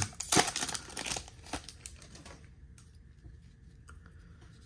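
Foil wrapper of a baseball card pack crinkling as it is pulled open, for about two seconds, then only faint handling of the cards.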